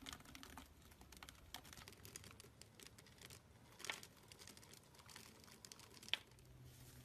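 Small dark chunks dropping onto a bowl of whipped slime: a faint patter of light clicks as they land on the slime and on each other, with two louder clicks about four and six seconds in.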